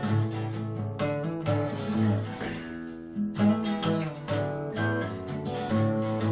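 Steel-string acoustic guitar strummed in a run of chords.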